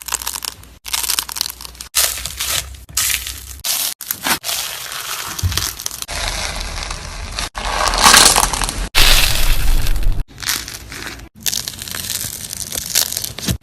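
Slime being squeezed and pressed by hand, making crunchy crackling and popping sounds. It comes in a run of short segments that cut off abruptly one after another, loudest toward the last third.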